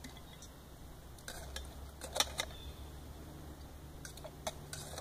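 Metal tongs clinking against a metal mixing bowl and plates as salad is served out: a handful of scattered light clinks, the loudest a little after two seconds in, over a faint steady low rumble.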